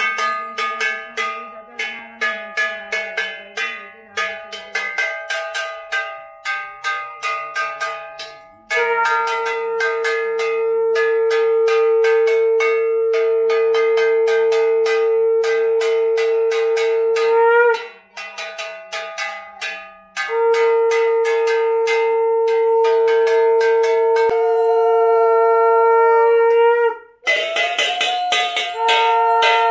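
A handheld metal gong struck rapidly and repeatedly with a stick, ringing, and joined by a conch shell (shankha) blown in long, steady blasts. There are three blasts: the first starts about nine seconds in, the second follows a short break, and the third starts just before the end. Each blast wavers in pitch as the breath runs out.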